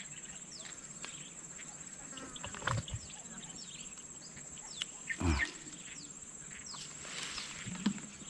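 A steady, high-pitched insect drone with scattered short bird chirps. Two brief louder sounds come about three and five seconds in.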